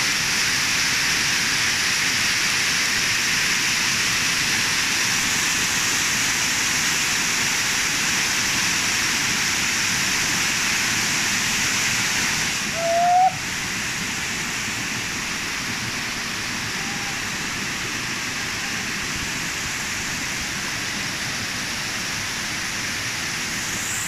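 Waterfall water rushing and splashing over a rock slope, a steady, even roar of white water. About halfway through it swells briefly, then drops a step quieter and stays steady.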